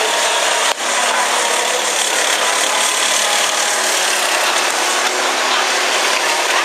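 Go-kart engine running steadily as the kart laps the track, a loud, steady buzz that briefly drops out under a second in.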